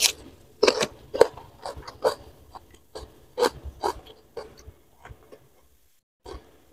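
A crunchy bite into a raw cucumber, followed by chewing crunches about twice a second that fade out after about four seconds.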